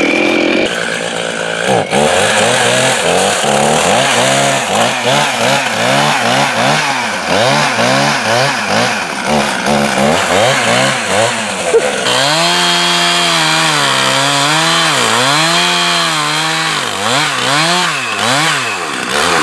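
Chainsaw cutting through the trunk of a small evergreen, its engine pitch rising and falling over and over as the chain bites into the wood. About twelve seconds in the pitch settles lower and steadier, still dipping repeatedly.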